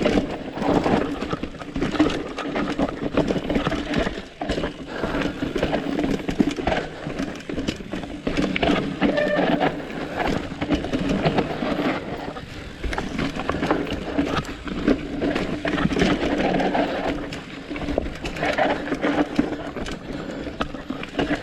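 Mountain bike ridden down a rough trail: constant clattering and rattling of the bike over roots and rocks, with a steady buzz underneath.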